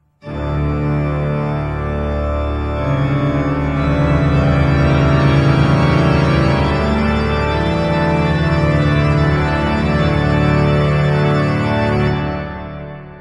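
Background music of slow, sustained keyboard chords, starting suddenly at the beginning and fading out near the end.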